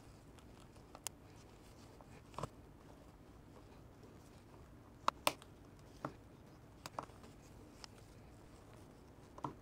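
Flush side cutters snipping and cracking the plastic housing of a small electrochemical gas sensor: a scattered series of small sharp clicks, the loudest two close together about five seconds in.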